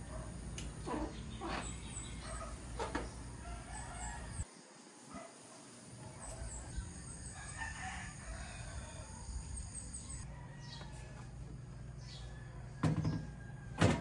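A rooster crowing in the background, with two sharp knocks near the end.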